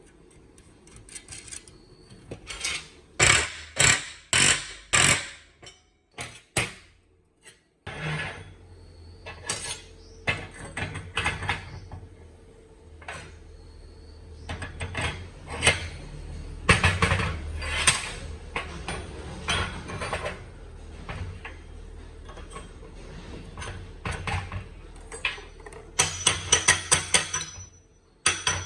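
Workshop metalwork: a series of hammer blows and metallic clanks, four loud strikes early and a quick run of rapid strikes near the end, over a low steady machine hum that starts about eight seconds in.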